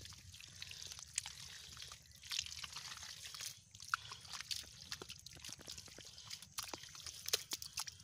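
Hands digging and scooping through soft, wet mud: irregular wet squelches and splats.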